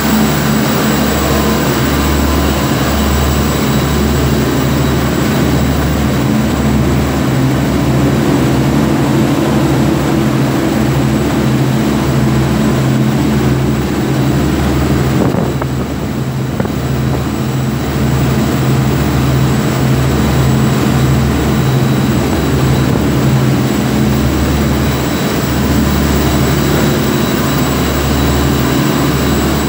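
A 52-foot shrimp boat's engine runs steadily under way at speed, a loud, even low drone, over the rush of wind and churning wake.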